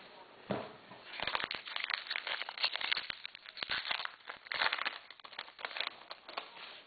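Foil trading-card pack wrapper crinkling and crackling as it is handled, with cards rustling and sliding, in irregular bursts.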